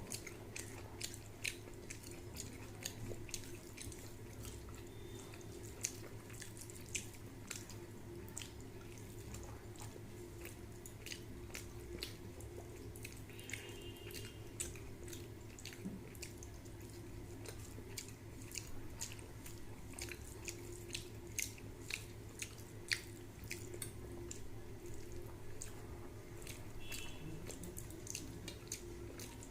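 Close-up eating sounds: wet mouth clicks and chewing, many small sharp clicks throughout, over a steady low hum.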